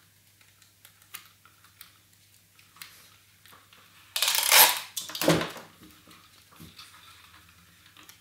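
Clear sticky tape pulled off a desk tape dispenser, with a loud ripping sound about four seconds in, then a shorter, sharper rip as it is torn off. Small clicks and rustles of cardboard strips being handled and pressed together come before and after.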